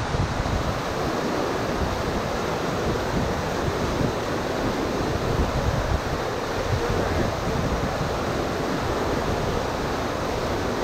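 Whitewater rapids on a river rushing steadily, a constant roar of churning, foaming water.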